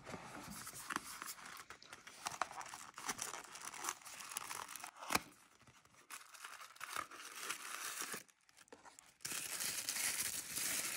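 Small cardboard advent-calendar box being handled and opened, with light scrapes and clicks and one sharp tap about five seconds in. From about nine seconds in, tissue paper crinkles loudly and steadily as the item inside is unwrapped.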